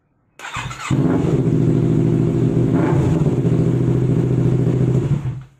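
Motorcycle engine running loudly at steady revs. It comes in suddenly with a rough burst about half a second in, holds an even note for about four seconds, then dies away near the end.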